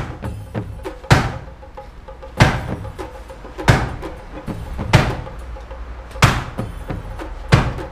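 Hard strikes on a wooden karate training post, six blows at an even pace of about one every second and a quarter, each a sharp knock that rings briefly.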